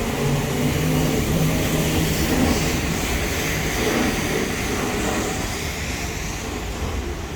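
A motor vehicle passing along a wet city street, loudest a couple of seconds in and fading toward the end, over general traffic noise.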